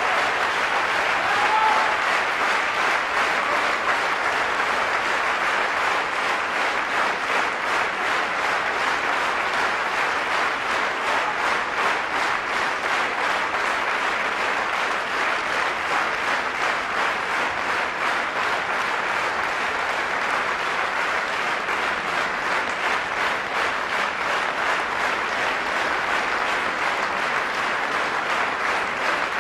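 Theatre audience applauding steadily, a dense unbroken clapping.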